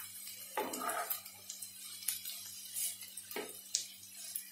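Wooden spatula stirring and scraping shredded cabbage in a frying pan, a handful of separate scrapes and knocks over a faint sizzle of frying.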